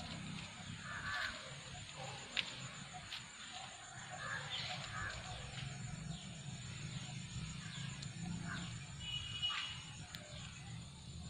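Rural outdoor background: scattered short chirps and clicks over a low steady hum.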